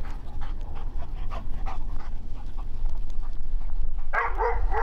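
Dogs panting in quick, regular breaths, with a short dog cry near the end.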